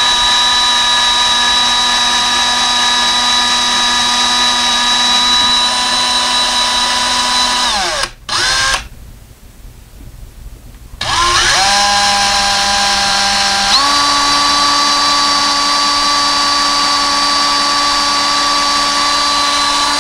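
Power drill with a 1/16-inch bit running steadily, drilling pilot holes into painted wooden window molding. Its motor whine winds down and stops about 8 seconds in, blips briefly, then starts again about 11 seconds in and rises to a higher pitch about 14 seconds in.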